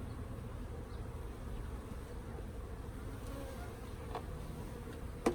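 Honey bees buzzing around an open hive, a dense steady hum. A single sharp knock sounds near the end.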